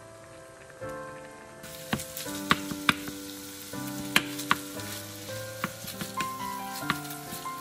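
Ground pork and beef sizzling in a nonstick frying pan, starting about a second and a half in, with sharp clicks of a wooden spatula knocking against the pan as the meat is stirred. Soft background music with steady notes plays throughout.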